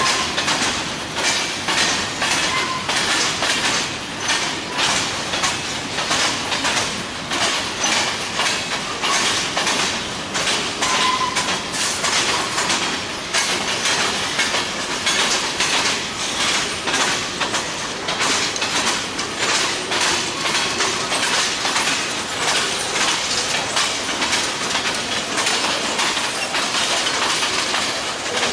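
Freight train rolling past, its wheels clicking steadily over the rail joints, several clicks a second, over a running hiss.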